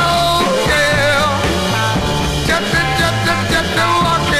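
1960s British beat-group rock record playing, with a steady driving beat, a repeating bass line and a gliding melody line over it.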